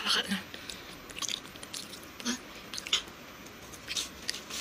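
Close-miked eating sounds: biting into and chewing a chocolate-coated biscuit snack, with scattered sharp crackles and mouth clicks, busiest just at the start.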